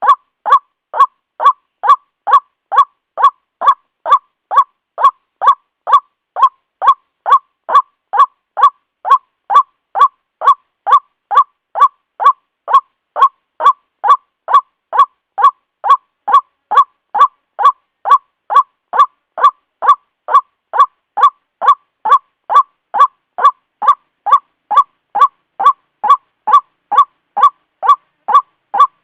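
White-breasted waterhen (ruak-ruak) calling, one short nasal call repeated evenly at a little over two a second without a break.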